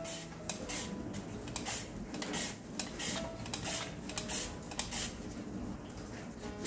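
Raw sweet potato slid rapidly back and forth across the blade of a plastic mandoline slicer, a quick scraping slice about three times a second, thin slices falling into a stainless steel tray.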